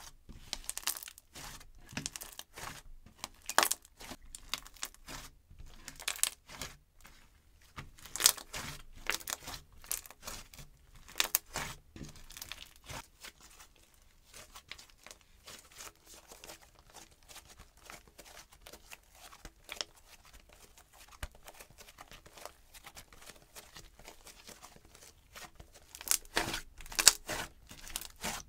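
Soft, poppy slime squished, folded and stretched by hand, giving irregular runs of small crackling pops and sticky tearing sounds. The sound is sparser in the middle and busiest near the end.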